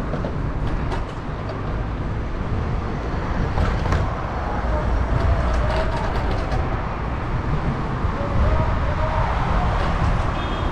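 City traffic and road noise heard from a moving bicycle, with a heavy low rumble of wind on the action camera's microphone and a few sharp clicks scattered through it.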